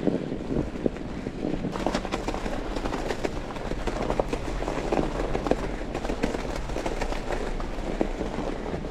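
Fat bike rolling along a snowy trail: a steady rumble of the wide tyres on snow, with many small irregular clicks and crackles from the snow and the bike.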